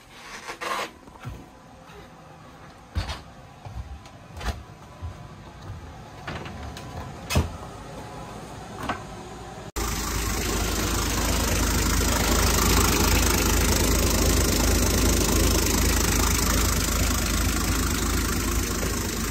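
Scattered knocks and clicks, then after a sudden cut about ten seconds in, the yacht's inboard engine idling loudly and steadily in its open engine compartment.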